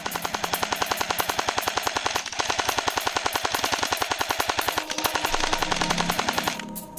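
M249 airsoft electric light machine gun firing full-auto: three long bursts of rapid, evenly spaced shots with brief breaks about two and five seconds in, stopping shortly before the end.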